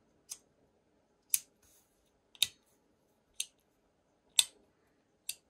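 A metal retractable pen being clicked, sharp single clicks about once a second.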